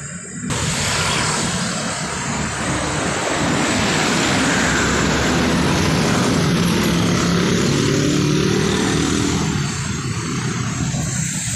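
Road traffic passing close by, with motorcycle engines droning alongside and wind and road noise on the microphone. The sound sets in abruptly about half a second in, the engine drone is strongest in the middle, and it eases off a little near the end.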